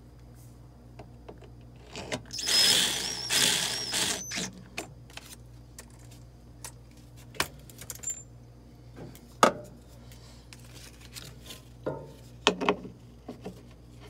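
Tools and metal parts being handled while a washer's drive assembly is put back together: two short bursts of harsh scraping noise about two to four seconds in, then scattered metallic clinks and taps, over a faint steady low hum.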